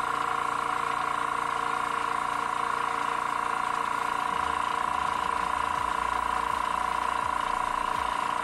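Gaahleri GT-918 airbrush compressor motor running with a steady whining hum, having switched itself on to refill its air tank.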